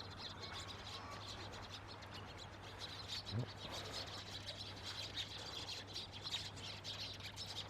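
Eurasian tree sparrows chirping: many short, high chirps over a steady low hum, with one brief low thump about three and a half seconds in.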